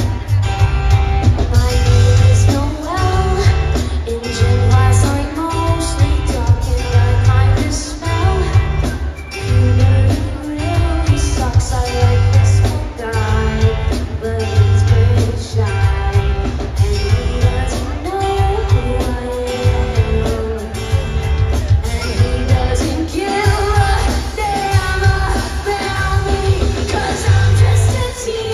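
Live concert performance of a pop-rock song: a female lead singer with guitar and a full band, with a steady drum beat and heavy bass, heard through a loud arena sound system.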